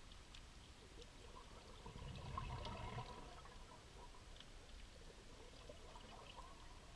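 Underwater: a scuba diver's exhaled bubbles gurgling up for about a second, around two to three seconds in, over faint scattered clicks.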